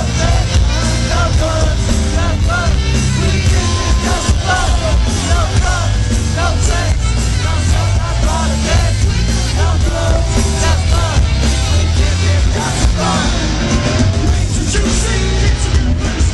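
Live rap-rock band playing loud, with a heavy bass and drum beat and voices yelling over it.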